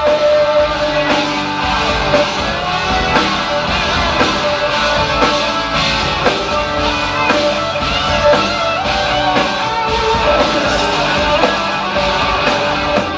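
Live rock band playing an instrumental break: electric guitars over bass and a steady drum beat.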